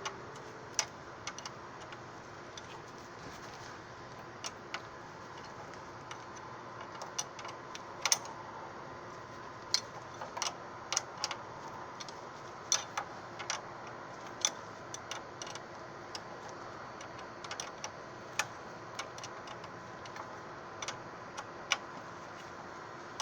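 Irregular sharp clicks and clinks of hand tools and metal brake-line fittings being worked, over a steady background hum.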